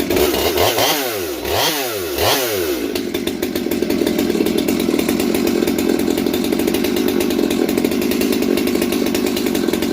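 Stihl MS200T two-stroke top-handle chainsaw, fitted with a muffler mod and base gasket delete, running just after a warm start. Its engine speed swings down and back up three times in the first three seconds, then it runs steadily.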